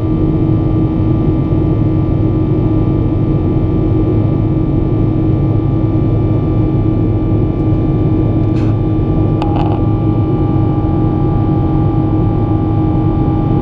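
Steady, loud engine and airflow noise of an airplane in flight after takeoff, with several steady engine tones over a low rumble. Two brief sharp sounds break in about two-thirds of the way through.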